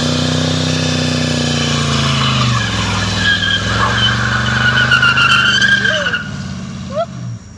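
A 350 small-block Chevy V8 held at high revs during a burnout, the rear tires spinning and squealing on the pavement. The revs dip briefly about two and a half seconds in, the tire squeal is loudest in the middle, and the engine comes off the throttle near the end.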